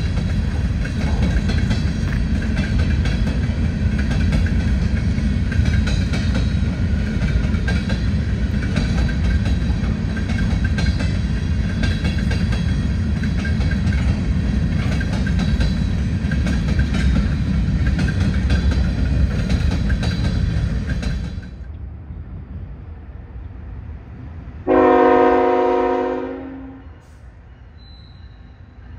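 Freight train of covered hopper cars rolling past close by: a steady heavy rumble with wheels clicking over rail joints, cutting off suddenly about three-quarters of the way through. About four seconds later comes a single locomotive air horn blast of about two seconds, the loudest sound, from an approaching CSX freight locomotive.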